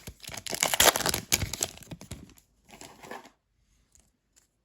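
Wrapper of a Panini trading-card pack being torn open and crumpled, a dense crinkling rustle for about two and a half seconds, with a shorter rustle about three seconds in.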